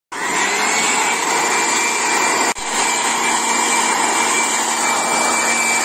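Handheld electric air blower running steadily, blowing air out through a long pipe extension, with a steady high whine over the rush of air. The sound breaks off for an instant about halfway through.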